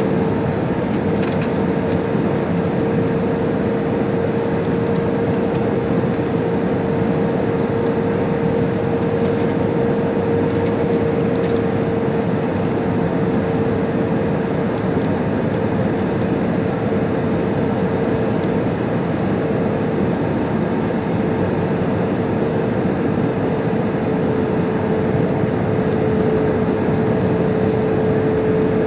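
Cabin noise inside an Airbus A320-214 in flight: a steady rush of airflow with the drone of its CFM56 engines, carrying one steady hum throughout.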